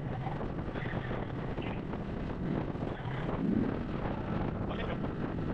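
Motorcycle running along a road, a steady engine rumble under wind noise buffeting the microphone.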